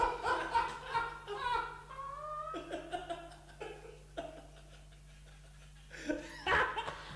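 Men laughing in repeated bursts, fading out about four seconds in, then one more strong burst of laughter near the end.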